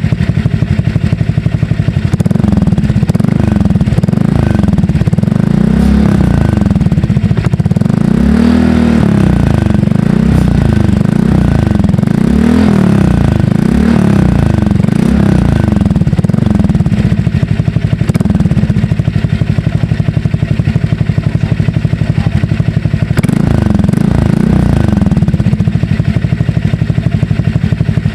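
Honda Click scooter's single-cylinder engine through an SC Project exhaust fitted with a double silencer, blipped up and down over and over, with a steadier stretch in the middle before a few more revs near the end.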